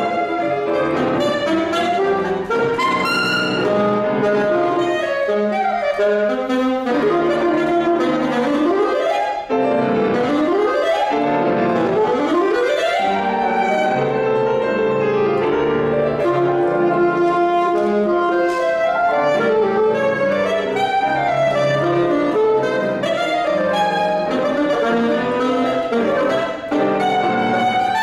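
Saxophone and grand piano playing a classical duo, with dense, busy passagework and several quick rising runs about a third of the way in.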